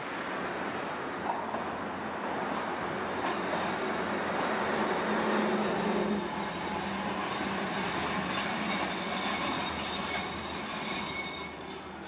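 Tosaden streetcar running along the rails as it approaches and pulls into a stop, its steel wheels giving a thin squeal.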